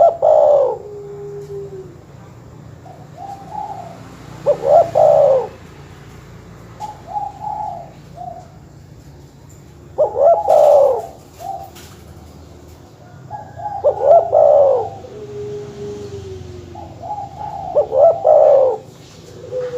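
Dove cooing: a repeated call phrase about every four seconds, five times, each a quick cluster of coos ending in a longer, lower note that falls away, with softer single coos in between. A steady low hum lies underneath.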